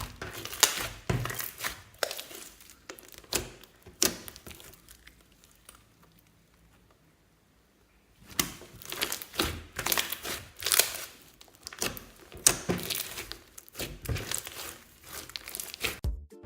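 Clear slime being kneaded and mixed by hand, giving off sticky crackling clicks and pops. It goes nearly quiet for a few seconds in the middle, then starts again.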